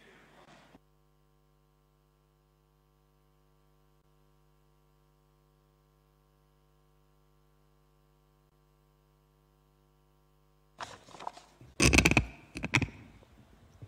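Near silence with a faint steady electrical hum. About eleven seconds in, a short burst of clicks, knocks and rustling breaks in, loudest a second later.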